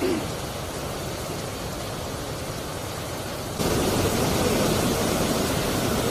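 Muddy, swollen river rushing steadily. About three and a half seconds in it becomes clearly louder, as water churns over rocks in a rapid.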